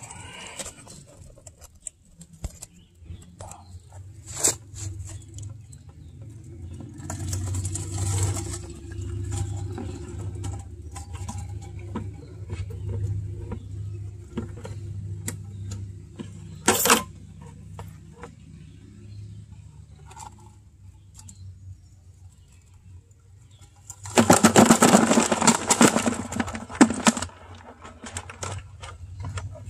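Wire-mesh crawfish trap handled and shaken over a plastic bucket: scattered clicks and rattles of the mesh, with a dense run of rattling near the end, the loudest part. A low steady hum runs underneath.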